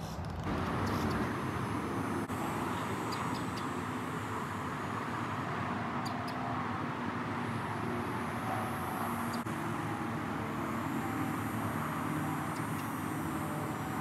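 Steady outdoor background rumble and hiss, with a few faint high ticks.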